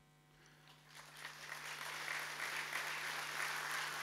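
Large audience applauding, starting about a second in and building to steady clapping.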